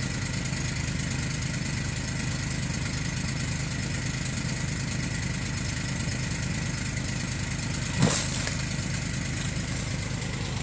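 A steady mechanical hum like an idling motor, with a single sudden thump about eight seconds in.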